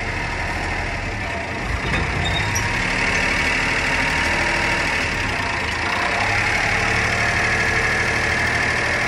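1997 Honda Acty mini truck's small three-cylinder engine idling steadily, with a steady hiss that grows louder about three seconds in.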